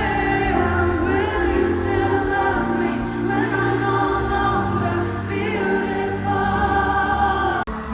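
Music with sustained, choir-like singing voices over a steady bass line. The sound cuts off suddenly near the end, and different music takes over.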